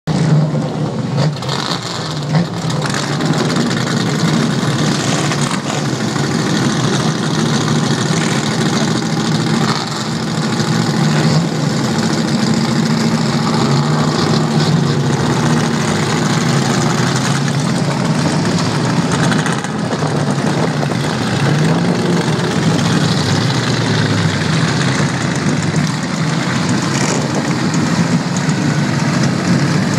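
Several Shelby Cobras' Ford V8 engines idling loudly together, the pitch swelling now and then with light revs as the cars pull away.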